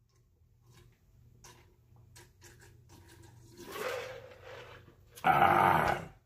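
A person gulping a drink from a large plastic pitcher, with faint swallowing clicks. A breath follows as the pitcher comes down, then a loud, breathy exhale of about a second near the end.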